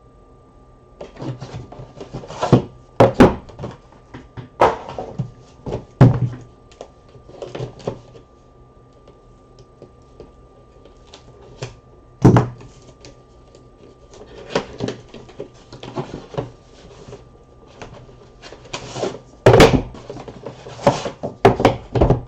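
Cardboard trading-card boxes being handled and opened on a table: irregular knocks, thunks and rustling, with a cluster of sharper knocks near the end.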